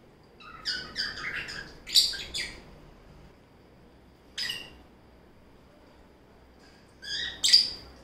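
Lovebirds chirping: a quick run of short, high-pitched calls in the first couple of seconds, a single call about four and a half seconds in, and two more near the end.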